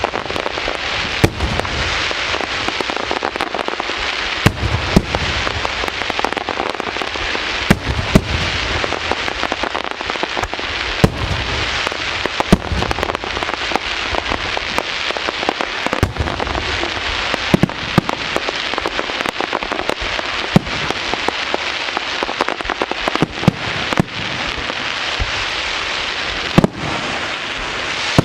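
Aerial fireworks: dense, continuous crackling with frequent sharp, loud bangs throughout.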